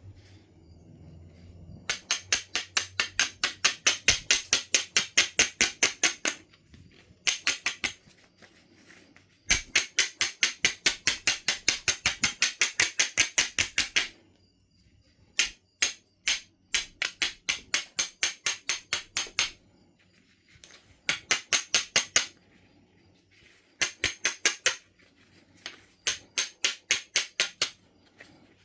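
Runs of quick, evenly spaced scraping strokes of stone on Knife River flint, about four or five a second, each run lasting a few seconds with short pauses between: an abrader rubbed back and forth along the edge to prepare striking platforms.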